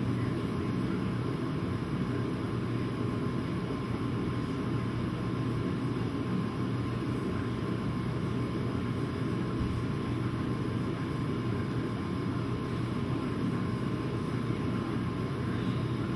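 A steady mechanical drone with a constant low hum and a faint steady whine, unchanging throughout.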